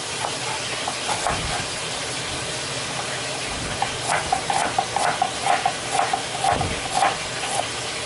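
Knife chopping an onion on a plastic cutting board: sharp taps about twice a second from about four seconds in. A steady hiss runs underneath.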